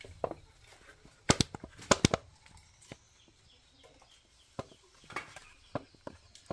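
Hollow dried calabash gourds knocking against each other as a baby monkey climbs among them: a few sharp knocks, the loudest about a second and a half to two seconds in, then lighter clicks.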